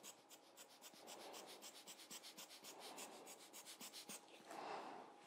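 Faint, rapid scratching of a fine paintbrush dabbing ink onto synthetic Yupo paper, about seven short strokes a second, stopping about four seconds in. Soft breathy puffs of air from a squeeze-bulb lens blower, the strongest near the end.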